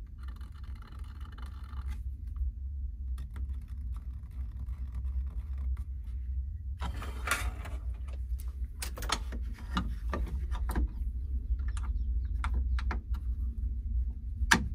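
Handling noise of a plastic AiM data hub being lifted and set back on a metal mounting plate: a dense scrape about seven seconds in, then a run of light clicks and knocks, the sharpest near the end, over a steady low hum. Faint squeaking in the first couple of seconds.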